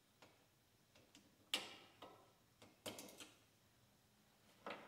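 Scattered light metal clicks, with a quick run of three or four about three seconds in: a magnetic pickup tool picking the valve locks out of a compressed valve spring retainer on a cylinder head.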